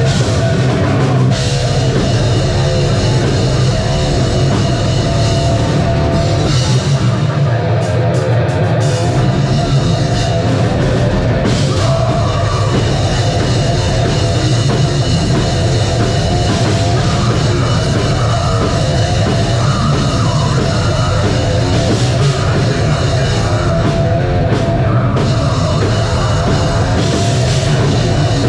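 Live metal band playing loud, with a drum kit driving a continuous heavy, dense sound.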